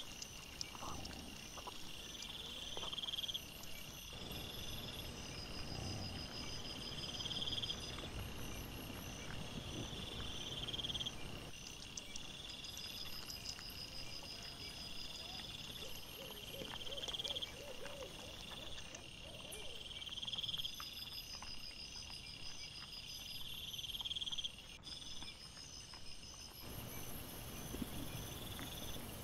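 A night insect chirping in a regular series of pulsed trills, each about a second and a half long and repeating about every two seconds, over a low rustling of wild boar rooting in leaf litter.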